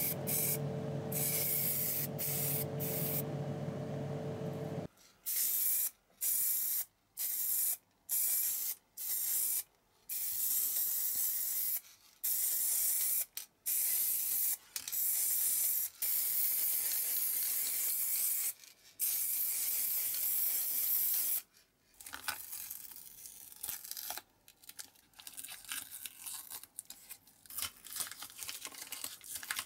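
Spray paint hissing onto small diecast model parts: a steady spray over a low hum for the first few seconds, then about a dozen short bursts with pauses between them. In the last several seconds, masking tape is peeled and crinkled off the painted part.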